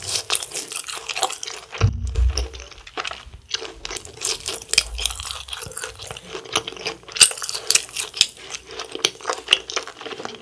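Close-miked chewing of a crunchy bite of food, with many crisp crunches in quick, irregular succession.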